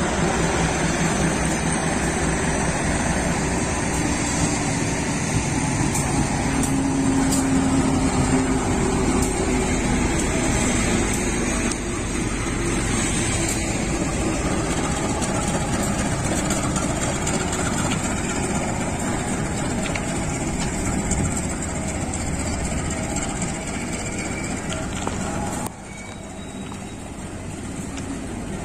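A KAI CC 203 diesel-electric locomotive hauling a passenger train passes close by: the locomotive's diesel engine running loud as it goes past, followed by the steady rolling noise of the coaches' wheels on the rails. The level drops suddenly near the end.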